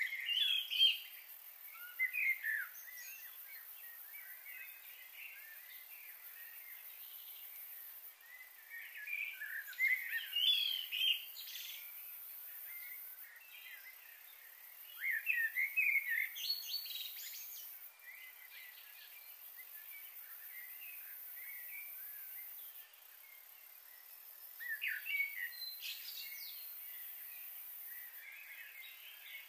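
Small birds chirping in short flurries of quick calls every several seconds, over a faint steady hiss.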